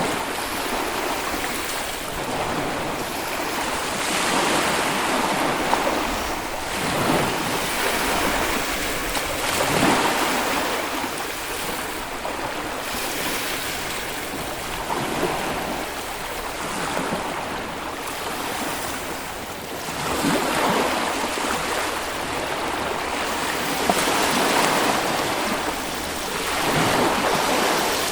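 Small Baltic Sea waves breaking and washing onto a beach, a steady surf hiss that swells every few seconds, with some wind on the microphone.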